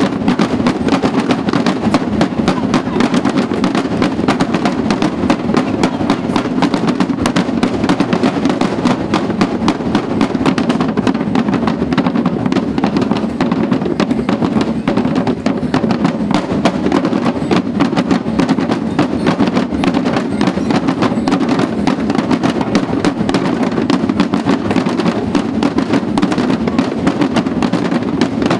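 A drum band playing snare drums and larger marching drums together in a fast, steady rhythm of dense stick strokes.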